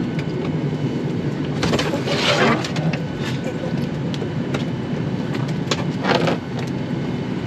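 Airliner cabin with a steady low hum. Passengers handling bags at the overhead bins make scattered clicks and knocks, with two louder rustling scrapes, one about two seconds in and one about six seconds in.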